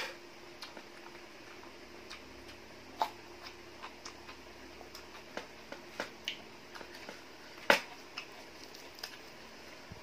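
Eating sounds: a person chewing glass-noodle salad and crisp fresh lettuce with scattered wet smacks and sharp clicks, one about three seconds in and the loudest near the end. A faint steady hum runs underneath.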